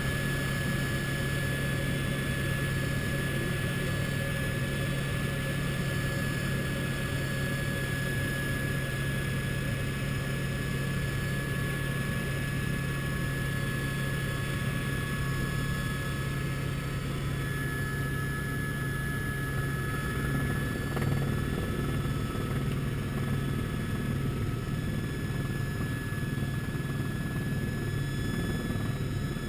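Helicopter in flight, heard from inside the cabin: a steady drone from the rotor and engine, with a steady high-pitched whine over it.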